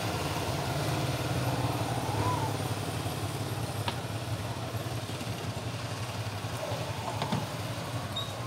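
Steady low mechanical hum, like a motor idling, with a few faint clicks.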